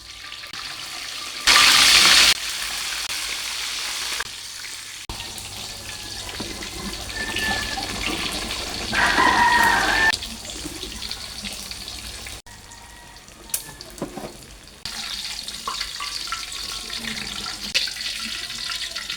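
Water running from a kitchen tap into a sink, in several short segments that start and stop abruptly, with a louder burst of water about two seconds in and a few knocks later on.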